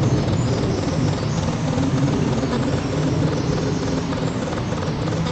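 Steady roar of fighter jets flying over, a deep rumble with a broad hiss above it, easing slightly over the few seconds.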